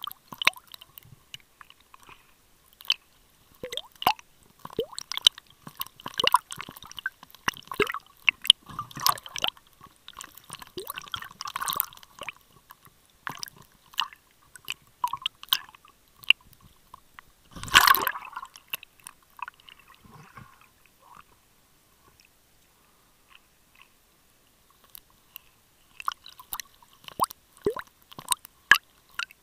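Water sounds heard underwater by the camera: irregular clicks, crackles and sloshing as it moves through the water, with one louder gush about eighteen seconds in and a few quieter seconds after it.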